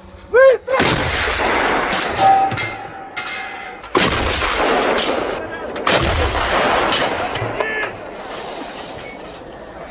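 Artillery guns firing: three heavy shots, about a second in, about four seconds in and about six seconds in, each followed by a long rolling echo. A brief shout comes just before the first shot.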